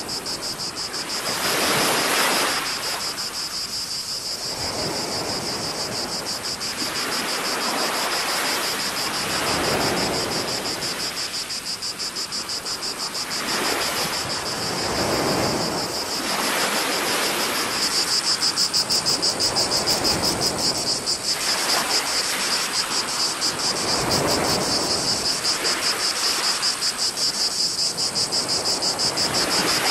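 Cicadas singing, a steady high buzz with a fast pulse that gets louder about halfway through. Under it, small waves wash and slap around a camera held at the water's surface every couple of seconds.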